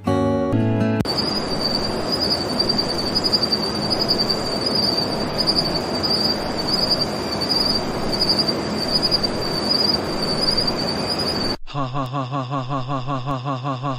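The last strums of an acoustic guitar, then a night ambience of crickets chirring in an even, pulsing high tone over a steady hiss. The ambience cuts off suddenly near the end, and a rapidly repeating pitched sound begins.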